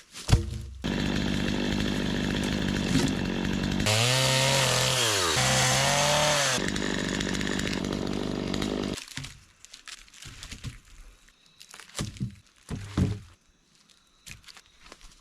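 Chainsaw running, then cutting through wood for a couple of seconds with its engine pitch dipping under the load twice and recovering, before stopping about nine seconds in. A few short knocks follow near the end.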